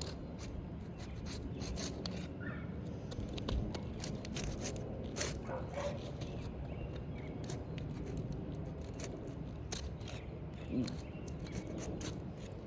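Thin-edged putty knife scraping and clicking as it is worked under asphalt roof shingles, breaking their tar sealant strips loose; the strips are baked dry and give little resistance. A dog barks a few times, briefly.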